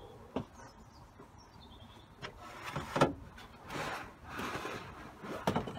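Scattered knocks and clunks with short bursts of rustling as parts and tools are handled. The sharpest knock comes about three seconds in.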